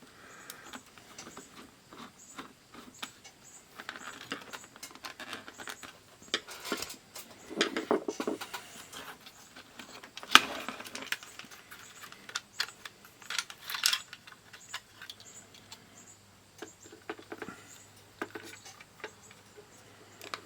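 Small clicks, taps and scrapes of a digital multimeter's plastic case and its little screws being handled and worked with a small screwdriver, with one sharp click about ten seconds in.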